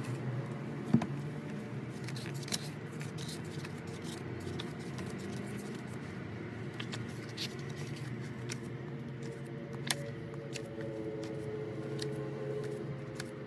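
Album packaging being handled and opened: scattered sharp clicks and taps of plastic and card over a steady low room hum.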